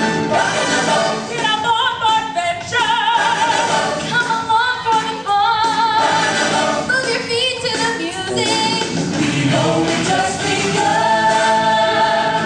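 Ensemble of voices singing a show tune with vibrato over musical accompaniment.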